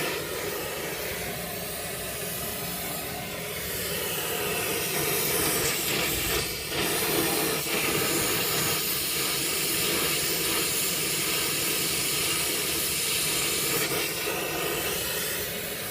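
Brazing torch flame hissing steadily while a copper fitting on a TXV is brazed in.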